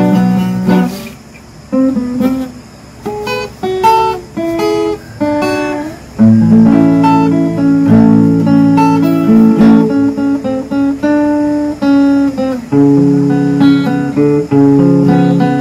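Acoustic guitar played fingerstyle with no singing. A few sparse single plucked notes come first, then from about six seconds in it turns fuller and louder, a melody picked over a bass line.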